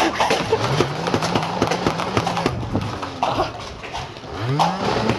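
Motorized Nerf foam-ball blaster whirring, its flywheel motor hum dipping and rising in pitch and climbing sharply near the end, amid a stream of quick clicks and knocks.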